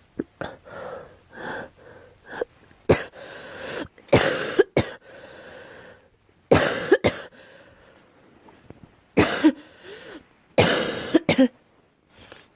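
A girl coughing over and over, in clusters of one to three coughs about every two seconds, the first few softer.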